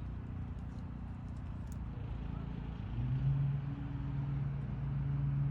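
An engine running with a steady low hum. About three seconds in, a stronger, higher steady tone joins it.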